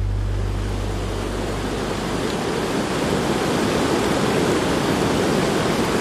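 Mountain stream water rushing steadily, with the low held notes of background music fading out in the first second or two.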